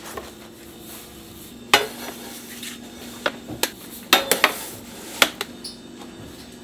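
Metal sheet trays clanking against a stainless steel rack: a series of sharp knocks, one about a second and a half in, a quick cluster around four seconds and one more past five seconds, over a steady low hum.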